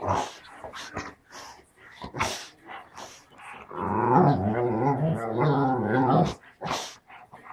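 English springer spaniel 'talking': one long, wavering, growly groan of about two and a half seconds starting near the middle, the loudest sound here, with a few short sharp huffs or scuffles before and after it as the dog rolls on its back on the carpet.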